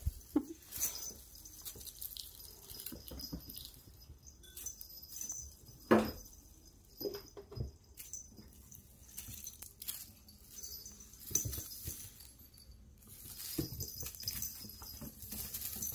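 Crinkly foil streamers of a cat wand toy rustling as it is waved and batted, with kittens' paws scampering and landing on a tile floor. A single loud thump comes about six seconds in.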